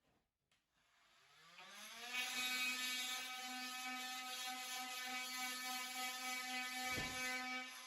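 Electric power tool motor winding up to speed about a second in, then running at a steady high whine.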